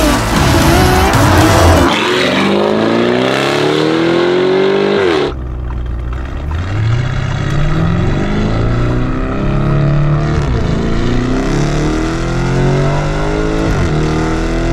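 Lamborghini Urus twin-turbo V8 with a Novitec exhaust accelerating hard. The engine note climbs in several long pulls and drops back at each upshift. The sound changes abruptly about five seconds in.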